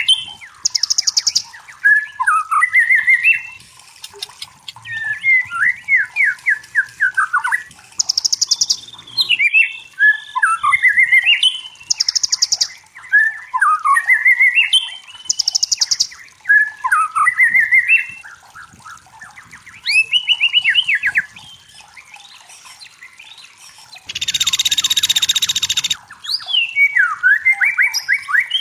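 White-rumped shama (murai batu) singing: short varied phrases of gliding whistled notes and fast trills, repeated about every two seconds with brief pauses. About 24 seconds in, a harsh buzzing burst lasts about two seconds.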